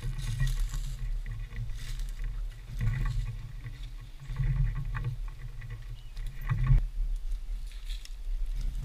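Footsteps crunching through dry leaves and palmetto litter in an uneven walking rhythm, with clothing rustling and low thumps against a body-worn camera.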